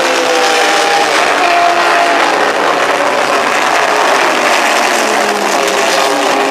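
Racing car engines at high revs as cars pass on the track, among them the air-cooled flat-six of the #78 1966 Porsche 911. The engine notes drop in pitch as the cars go by.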